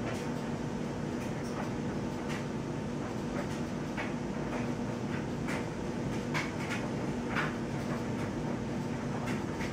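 A steady low mechanical hum, with faint, irregular ticks scattered over it.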